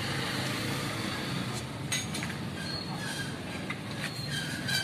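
A few light metallic clinks of tools or loose engine parts being handled, about two seconds in and again near the end, over a steady low rumble.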